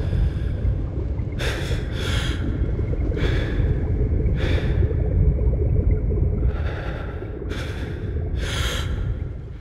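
A swimmer's sharp, gasping breaths, one every second or so, over a steady low rumble of water and wind; it all fades near the end.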